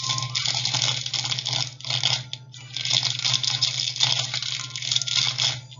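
Plastic packaging crinkling and rustling as it is handled and torn open, a dense crackle broken by a couple of short pauses, over a steady low hum.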